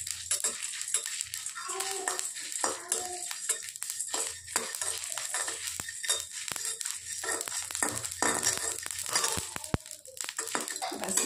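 Whole spices (coriander seeds and dried red chillies) being stirred while they dry-roast in a steel kadai: the seeds rattle and the spatula scrapes the metal in quick, irregular strokes.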